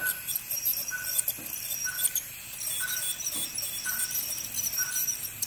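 Ultrasonic dental scaler with its water spray, giving a high hiss and whine with small scraping clicks as it works tartar off a dog's teeth. Behind it, a short beep about once a second from the anaesthesia monitor.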